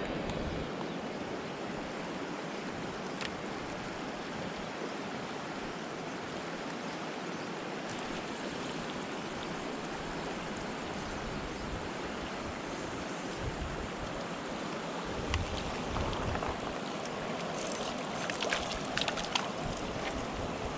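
Mountain stream rushing over rocks: a steady wash of water, with a few sharp clicks and knocks near the end.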